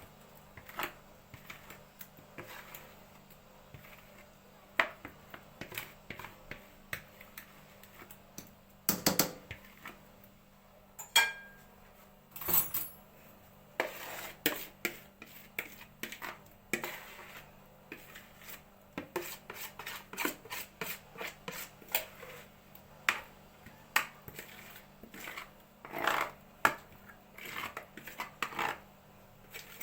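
Kitchen utensils clinking and knocking against a bowl and a baking pan as basbousa batter is transferred into the pan: irregular clicks and knocks throughout, a few louder ones around the middle and near the end.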